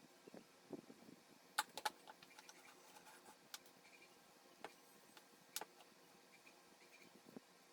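Near silence with a handful of faint, short clicks and taps scattered through it, the sharpest about one and a half seconds in and again near the middle.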